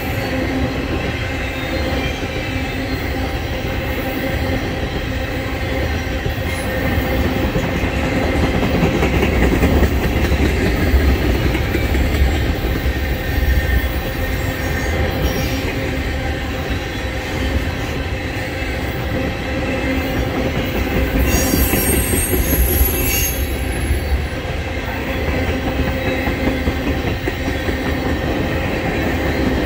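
Tank cars of a freight oil train rolling past: a steady rumble of steel wheels on the rails with clickety-clack and steady squealing tones from the wheels. A brief high screech comes about 21 seconds in.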